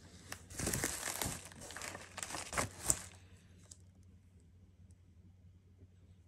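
Plastic packaging crinkling and rustling for about three seconds as it is handled, with a sharp click near the end of the rustling.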